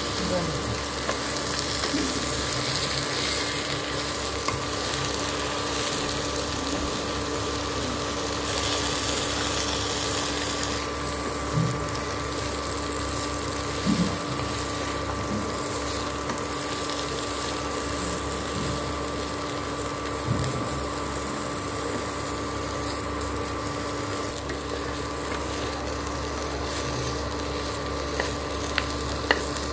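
Sliced bitter gourd (karela) sizzling in hot oil in a kadai while being stirred with a spatula, with the spatula now and then clicking and scraping against the pan. A steady hum runs underneath.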